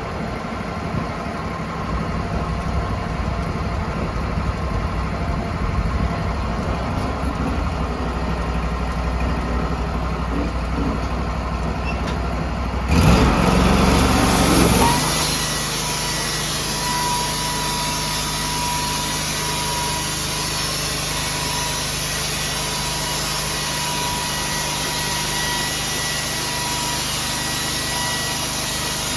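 Sawmill engine running steadily. About halfway through, a louder burst lasts a couple of seconds, after which the machine settles into a steadier, higher note with a thin whine.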